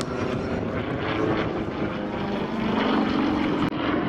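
Sukhoi Su-26's nine-cylinder radial engine and propeller running in flight during aerobatics, the engine note rising about halfway through.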